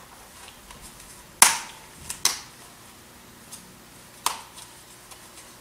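Sharp clicks from small plastic sample containers being handled: a loud click about a second and a half in, two more close together just after, and another a little past four seconds.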